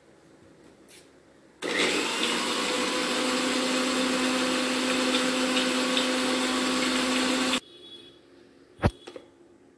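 Preethi Popular mixer grinder running steadily for about six seconds, grinding mint, coriander, green chillies and ginger into a wet paste, then cutting off abruptly. A single sharp knock comes about a second after it stops.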